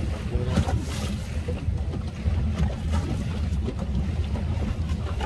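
Small motor launch under way on open water: a steady low engine rumble, with wind on the microphone and water splashing against the hull now and then.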